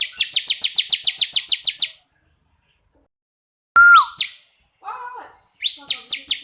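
Ciblek kristal (a prinia) singing. It gives a fast, high trill of about a dozen quick repeated notes, falls silent for a moment, then gives a loud slurred whistle and a few upswept notes with some lower chatter, and starts a second fast trill near the end.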